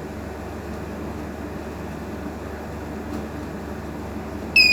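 Steady background rumble. Near the end a buzzer module suddenly starts a continuous high-pitched tone: the heated tube-light starter has closed the fire-alarm circuit.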